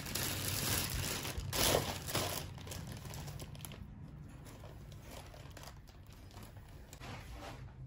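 Clear plastic bag crinkling as a massage gun is pulled out of it. The rustling is loudest for the first couple of seconds, then softer crackling.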